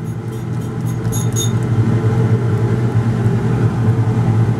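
A steady low mechanical hum, growing a little louder after the first second or so, with a few light clicks about a second in.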